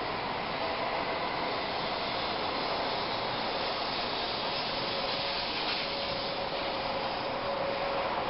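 N700 series Shinkansen train running out of the station: a steady rolling rail noise with a faint motor whine.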